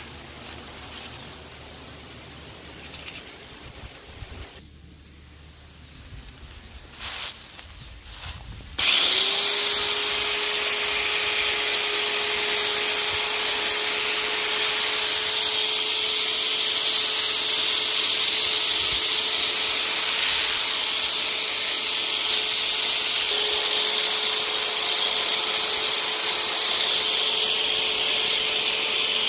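Parkside PHSL 900 A1 900-watt electric long-reach hedge trimmer switched on about nine seconds in. The motor spins up quickly and then runs steadily, a constant whine over a bright hiss. Before it starts there are only light handling sounds and a couple of short knocks.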